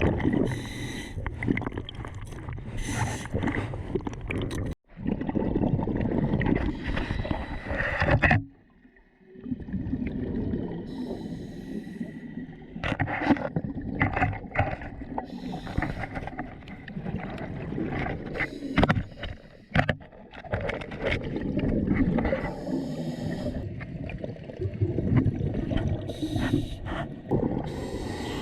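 Water gurgling and sloshing around a diver's camera as it moves through the sea, with a sudden cut about five seconds in and a brief lull around nine seconds.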